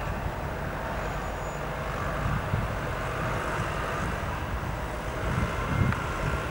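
ATR 72-600 twin turboprop engines running steadily, with a faint whining tone that rises slightly near the end, and wind gusting on the microphone.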